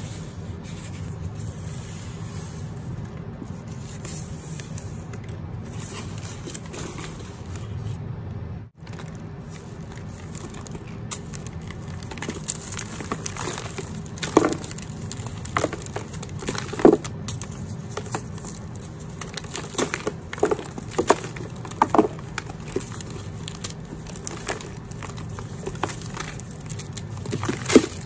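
Hands crushing and crumbling a soft, dusty block of dyed chalk: a steady gritty rubbing at first, then, from about halfway on, a run of sharp crunches and cracks as pieces break off.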